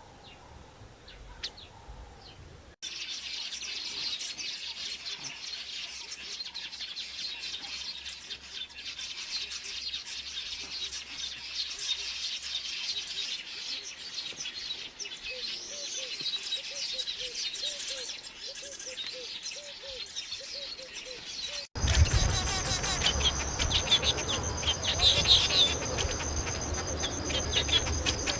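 Wild birds chirping over a dense buzz of insects. The sound changes abruptly twice, and in the last few seconds a steady high insect whine runs under the chirps along with a low rumble.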